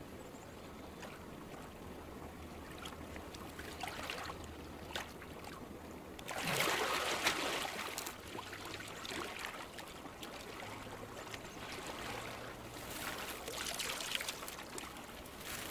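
Shallow salmon river running over stones, with a louder stretch of splashing about six seconds in.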